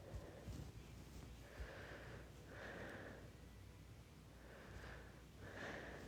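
A person breathing faintly, with several slow breaths in and out about every couple of seconds.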